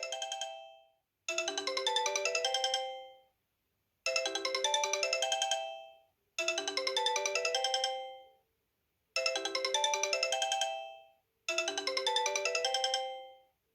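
Sony Ericsson Xperia Active smartphone ringing with an incoming call: a short, bright melody of quick notes repeats five times, a new phrase about every two and a half seconds with a brief silence between.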